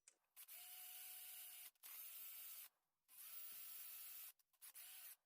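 Very faint whirr of a drill spinning a small cylindrical wire brush inside a wrench jaw, in four short runs that start and stop abruptly.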